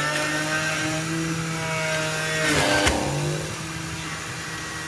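Electric juicer motor running at speed as a chunk of ginger is juiced. About two and a half seconds in its pitch sags with a knock as it labours, then picks back up.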